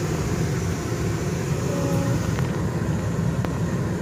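Steady low rumble of a diesel pickup truck, heard from inside the cab.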